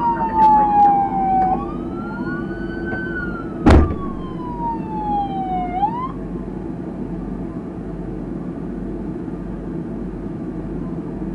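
Police car sirens wailing, several tones sliding slowly down and up together, then cutting off about six seconds in, leaving a steady low rumble. A single sharp thump about four seconds in is the loudest sound.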